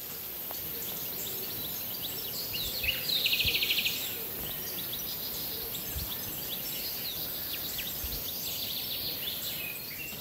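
Small forest birds calling with short high chirps, with one loud, fast, rattling trill about three seconds in and another run of calls near the end.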